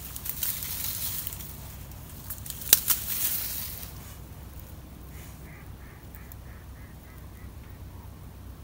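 A sharp click opens, and a louder one comes a little under three seconds in, with a brief rushing hiss around them. About five seconds in a waterbird gives a quick run of about nine short calls, roughly four a second, that fade away.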